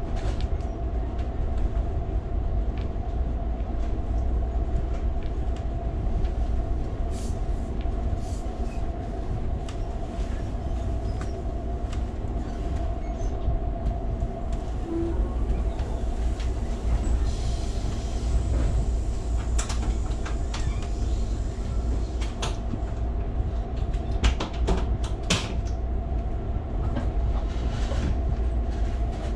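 Ride noise inside an Amtrak California Zephyr passenger car rolling at moderate speed: a steady low rumble and hum. Scattered clicks and knocks of the wheels on the track come through, thickest about two-thirds of the way through.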